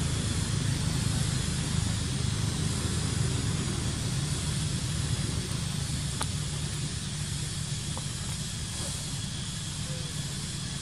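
Steady outdoor background noise: an even hiss over a low rumble, with two faint short ticks about six and eight seconds in.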